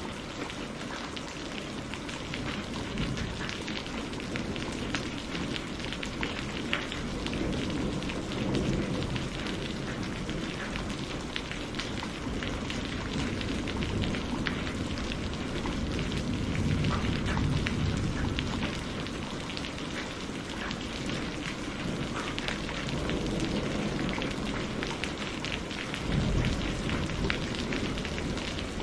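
Steady rain falling on hard city surfaces: a constant hiss dense with the patter of individual drops. Low rumbles swell now and then underneath, around a third of the way in, past the middle and near the end.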